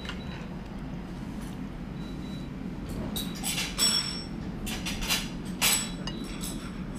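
Crockery clinking: a handful of sharp, ringing knocks of ceramic plate and sauce bowl in the second half, as fried fish balls are picked up and dipped. A steady low hum runs underneath.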